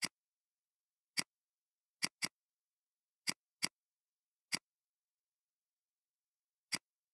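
Computer mouse clicking: eight sharp single clicks at irregular intervals, two of them in quick pairs, with silence between.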